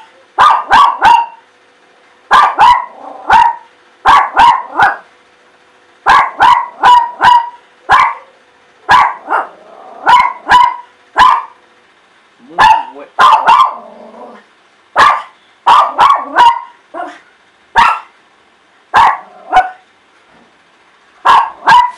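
A dog barking again and again, in quick runs of two to four sharp barks with short pauses between the runs.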